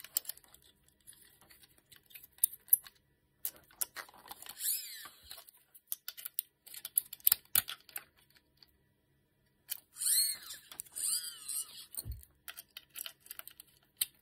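Small screws being driven by hand with a precision screwdriver into 3D-printed plastic parts: scattered clicks and ticks of the driver tip and screws, with two stretches of squeaky grinding as screws bite into the plastic, about 4 s and 10 s in. A dull knock about 12 s in.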